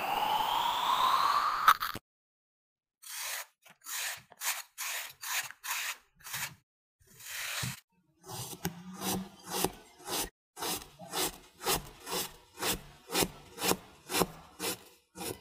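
Kinetic sand being cut with a blade: a run of short, crisp scraping strokes, settling into an even pace of about two a second. At the start there is a rising tone as a metal tube is pressed down into sand.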